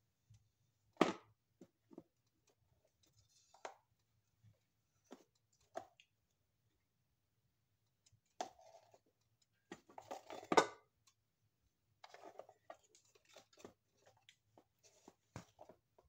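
Handling noise in the kitchen: sparse faint clicks and knocks, with a sharp knock about a second in and a denser patch of knocks and rustles around ten seconds in.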